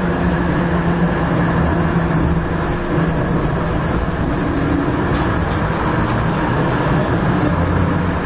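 Tram heard from on board while running: a steady low hum of the motor with the rumble of wheels on the rails, mixed with passing street traffic.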